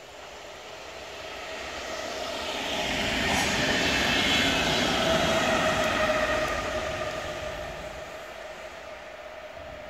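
VR electric multiple-unit commuter train passing at speed: it grows louder as it approaches, is loudest about four to six seconds in, with a steady electric whine over the rumble of wheels on rail, then fades as it moves away.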